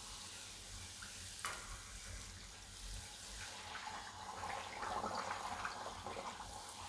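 A pakwan, a flat maida disc, deep-frying in hot oil in a steel kadai: a quiet, steady sizzle with fine crackling that grows busier about halfway through, and one light click about one and a half seconds in.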